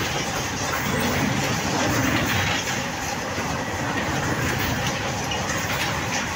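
Covered freight wagons of a goods train rolling past slowly, under 50 km/h: a steady rumble of steel wheels on the rails with clatter from the wheels and couplings.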